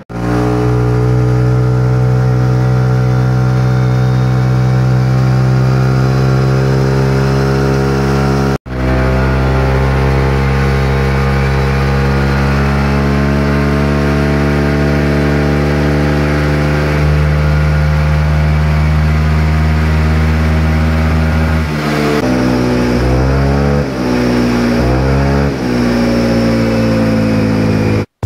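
A Yamaha Xeon carburettor scooter's single-cylinder four-stroke engine runs at full throttle on a roller dyno, held high and steady with its pitch creeping slowly upward: a baseline power run on the stock CDI. Near the end the throttle is let off and blipped, and the revs dip and rise a few times before falling away.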